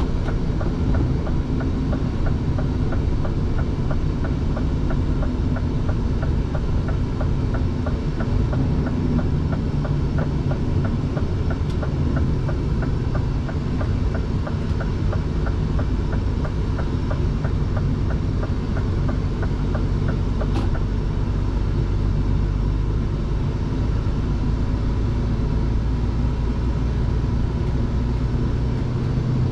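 Scania prime mover heard from inside the cab while driving: a steady engine and road rumble. A light, regular ticking runs a few times a second through the first half, and the low drone grows heavier in the last few seconds.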